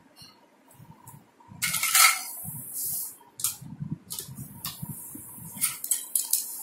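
Plastic toy kitchen utensils clicking, knocking and rustling as they are handled and hung on a toy play kitchen: an irregular string of light clicks and knocks starting about a second and a half in.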